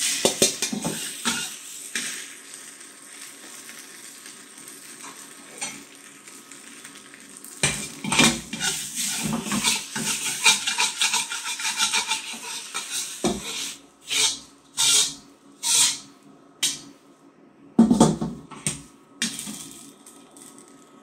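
A wok spatula scrapes and clatters against a steel wok as fresh rice noodles are stir-fried, with a faint sizzle between strokes. The scraping is busiest in the middle. Near the end come a few separate sweeping scrapes and one louder clatter as the noodles are scooped out.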